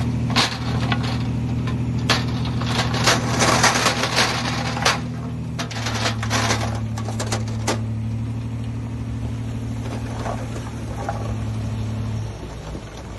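Diesel engine of heavy earthmoving equipment running at a steady pitch, with many sharp clanks and knocks through the first eight seconds. The engine sound drops away near the end.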